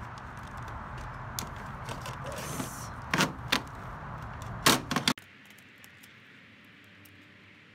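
Sharp plastic clicks and clacks as the accordion side panel of a window air conditioner is slid and snapped into the unit's side track. There are two pairs of loud clacks, about three seconds in and about five seconds in, over a steady background hiss. The hiss cuts off suddenly just after the second pair.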